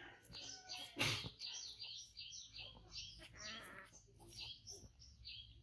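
Short high chirps repeating about three times a second, like a small bird calling, with a single sharp knock about a second in.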